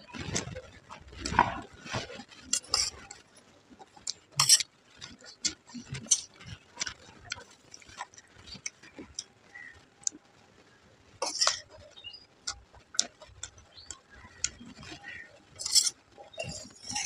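Steel spoon scraping and clinking on a steel plate, with crisp chewing of puffed rice (muri) mixed with ghugni. It comes as a string of sharp, irregular clicks and crunches, busiest in the first couple of seconds.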